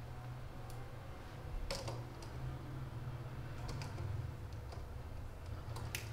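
A few small, sharp metallic clicks of pliers and wire against a duplex electrical outlet as its wires are attached, over a steady low hum.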